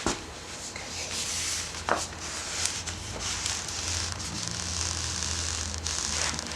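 Steady hand rubbing on a pinball machine's cabinet side, opening with a sharp click and broken by a knock about two seconds in.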